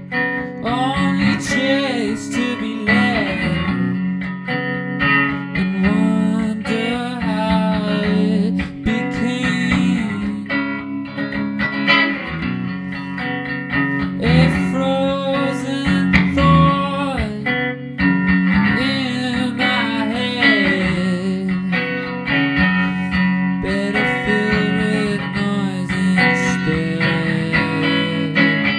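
Fender electric guitar playing an instrumental passage of a song: a steady low pattern under a higher melody that bends in pitch.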